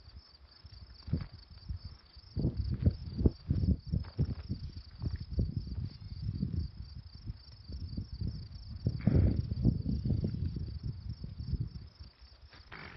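Insects chirping steadily in a fast, even, high-pitched pulse, over irregular low thumps and rustles that are loudest about nine to ten seconds in.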